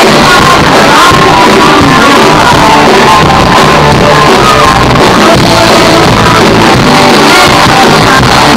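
Live swing band playing loudly, with a woman singing over electric guitar and drums.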